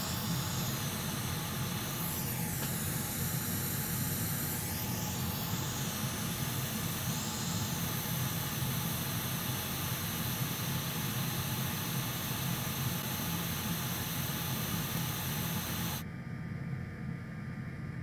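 Hot air rework station blowing a steady hiss over a replacement Intel JHL6340 Thunderbolt controller chip as it is reflowed onto the laptop motherboard. The hiss drops away near the end.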